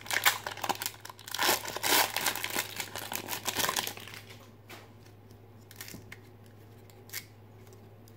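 A 1992 Fleer Ultra football card pack's wrapper being torn open and crinkled for about four seconds. After that come a few faint clicks as the cards are handled.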